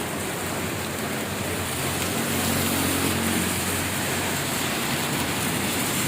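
Heavy rain pouring steadily, with a motor vehicle's engine humming underneath and swelling slightly about two to three seconds in.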